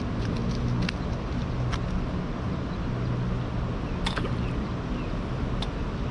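Steady low rumble of distant traffic, with a few sharp clicks scattered through it, the loudest about four seconds in.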